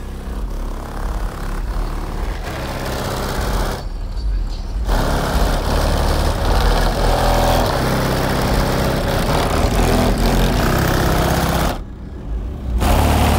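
Bass-heavy music played very loud through two Sundown ZV4 15-inch subwoofers in a ported box tuned to 35 Hz, heard from outside the truck, dominated by deep bass. The higher parts of the music drop out twice, about four seconds in and near the end, while the bass keeps going.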